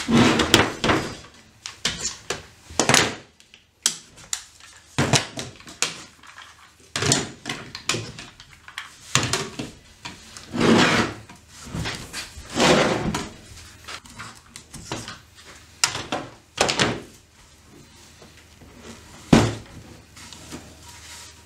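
One-handed quick-release bar clamps being released from a glued-up block of laminated wood strips and set down on a wooden workbench: a string of irregular plastic-and-metal clacks, rattles and wooden knocks, with a sharp knock near the end.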